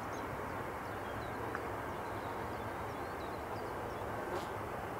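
Steady low background hiss and rumble, with faint, high bird chirps scattered through it.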